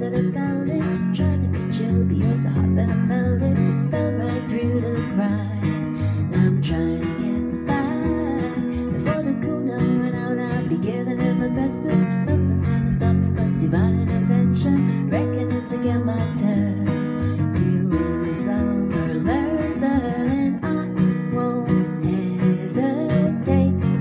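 Acoustic guitar strummed in a steady rhythm, with a woman singing along at times.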